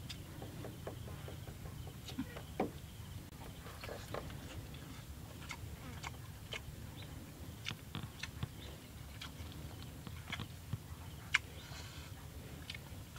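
A man chewing grilled fish, making irregular mouth clicks and smacks over a steady low background hum; the sharpest clicks come about two and a half seconds in and near the end.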